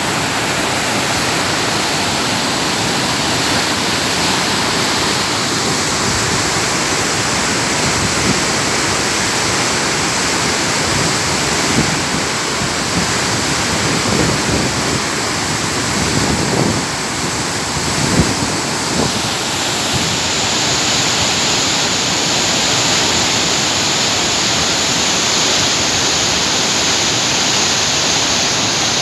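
Muddy river in flood rushing past in a loud, steady roar of churning water, with deeper surges now and then.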